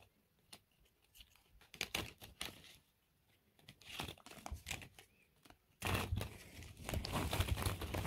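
Scissors snipping a plastic mesh net bag, heard as scattered short snips and crinkles of the net and its label. About six seconds in, hollow plastic ball-pit balls tumble out of the opened net, knocking against each other in a dense clatter with the net rustling.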